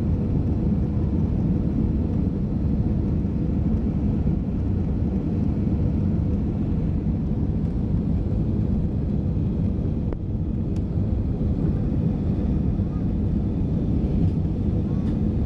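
Steady low rumble of an Airbus A320 airliner, jet engine and airflow noise heard inside the cabin.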